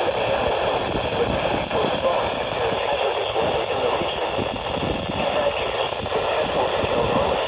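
Steady radio static from a weak NOAA Weather Radio signal, a hiss with fine crackle and no clear voice or alarm tone coming through.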